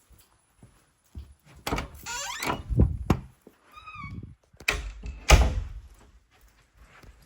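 A series of knocks and thuds mixed with short squeaks, the loudest thuds about three and a bit over five seconds in.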